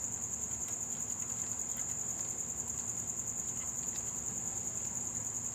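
A cricket chirping steadily in the background, a high-pitched, rapidly pulsing trill, with a few faint clicks of metal parts being handled at the V8's rocker arms.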